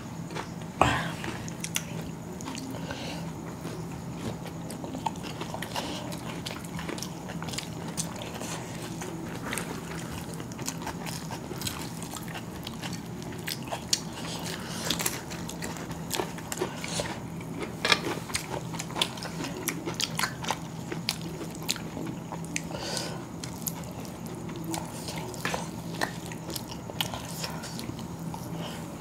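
Close-up eating sounds of chicken biryani eaten by hand: scattered chewing, lip-smacking and mouth clicks, with soft sounds of fingers mixing rice on the plates. A low, steady hum runs underneath.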